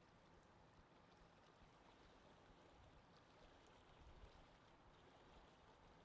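Very faint, steady rush of wind, with small scattered ticks over it.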